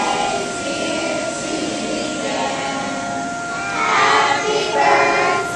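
A group of children's and adults' voices calling out and cheering together, swelling louder about four and five seconds in.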